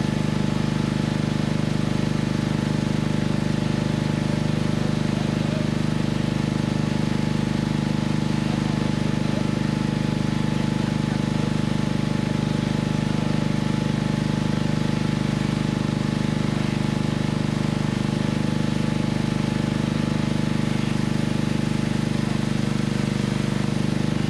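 An engine running at a constant speed: a steady drone of several fixed tones that holds without rising or falling.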